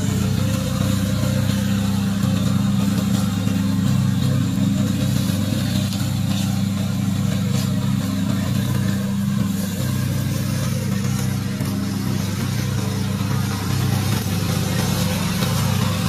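Engine of a remote-controlled tracked mower running steadily under load as it mows through tall weeds.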